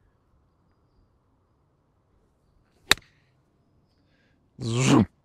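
A golf club striking the ball on a chip shot: one sharp click about three seconds in, from a clean, crisp strike. Near the end a man's voice rises in an exclamation.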